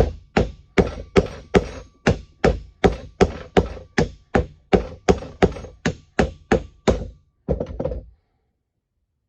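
Copper hammer striking the swivel piece of an old cast-iron Armstrong pipe vise to drive it out of the jaws. The blows come steadily, about two and a half a second. Near the end come a few lighter, quicker taps, then the hammering stops.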